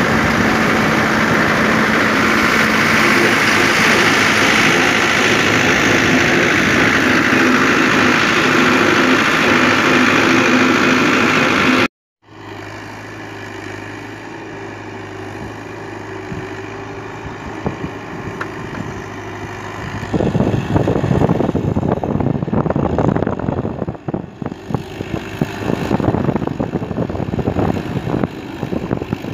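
Diesel vehicle engine running loud and steady up close. After a sudden cut, the Fiat 640's four-cylinder diesel tractor engine hums steadily at a distance as it pulls a tillage implement through sand. In its last ten seconds the distant engine is overlaid by irregular rushing gusts.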